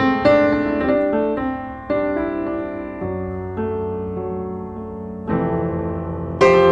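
Background piano music: struck notes and chords that fade after each attack.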